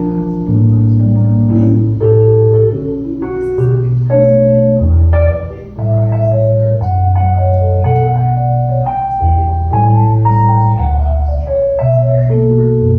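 Solo piano playing an instrumental chorus of a jazz standard: a single-note melody in the upper middle over chords and bass notes that change about once a second.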